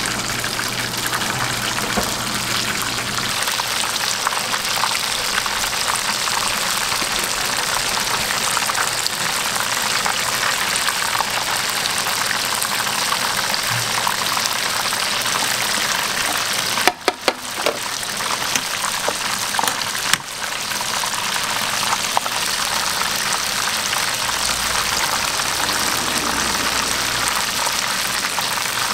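Battered strips deep-frying in a wide pan of hot oil: a steady, dense sizzle and crackle, broken briefly twice past the middle.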